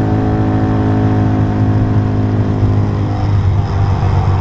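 Honda Monkey 125's air-cooled single-cylinder four-stroke engine running at a steady pitch under way, with the note breaking up about three seconds in.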